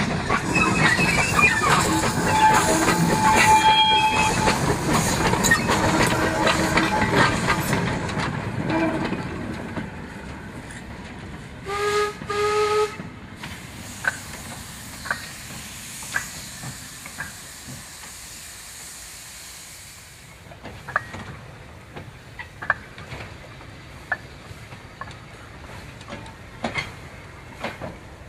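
Hudswell Clarke 0-6-0ST saddle-tank steam locomotive working a train of coal wagons past: loud steam exhaust with rattling, clanking wagons for about the first nine seconds. Two short whistle toots come about twelve seconds in, then the train is quieter, with scattered clanks of wheels and couplings over the rail joints.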